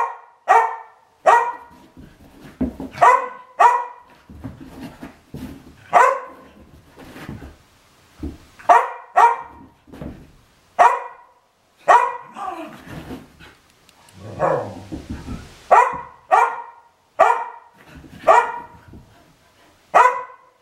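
American Eskimo Dogs play-barking: about twenty short barks, often in quick pairs, at irregular intervals.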